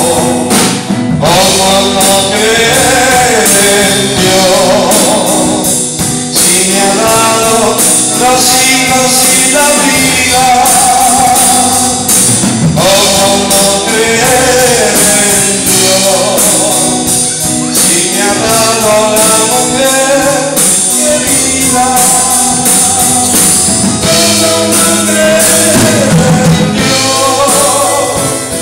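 Live worship song: a man singing through a microphone and PA, accompanied by electric keyboard and a drum kit with cymbals.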